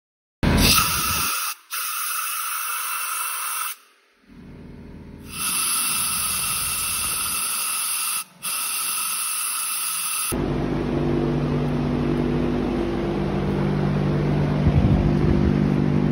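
A loud steady hiss, broken off abruptly twice, gives way about ten seconds in to the 2003 Yamaha Blaster's 195 cc two-stroke single running steadily. It now runs after its no-spark fault was fixed with a new stator and fresh reeds.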